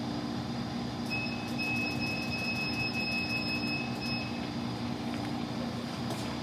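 Selmi tempering machine's control panel giving a high, steady electronic beep for about three seconds, starting about a second in, with faint quick ticks, as a button is held to scroll the calibration value down. The machine's steady running hum sits underneath.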